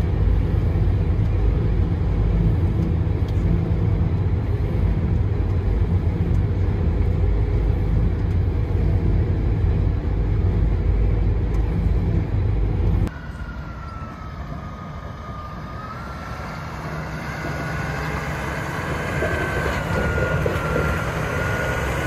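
Claas Jaguar 970 forage harvester running at work chopping corn, heard from inside its cab as a loud, steady, deep drone. About thirteen seconds in the sound cuts to outside: quieter field machinery with a steady high whine that wavers slightly in pitch and grows louder toward the end.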